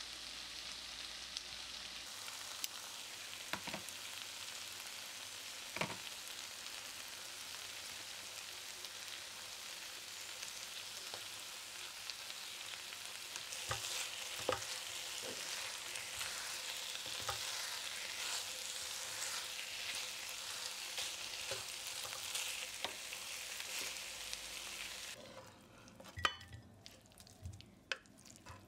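Stir-fried tofu and tempeh in sauce sizzling in a non-stick frying pan while a spatula stirs them, with scattered clicks of the spatula against the pan. About 25 seconds in the sizzling stops and a few knocks follow as the food is scooped out of the pan.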